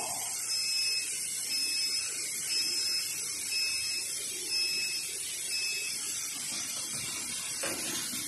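Vibratory bowl feeder running, the plastic parts chattering inside it as a steady hiss. A faint short high tone repeats about once a second.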